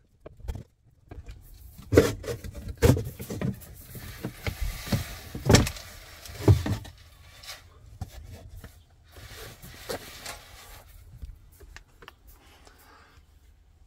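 Thin wooden panel inside an overhead cabinet being pulled loose by hand: a run of sharp wooden knocks and scraping in the first half, then quieter handling.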